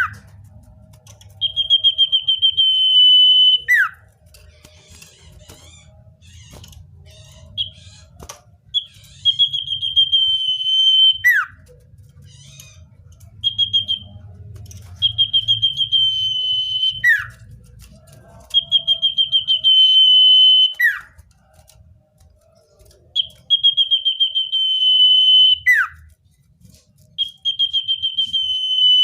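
Common iora (cipoh) singing: about six phrases, each a long trilled whistle ending in a sharp downward slur, repeated roughly every four seconds, with softer calls between them.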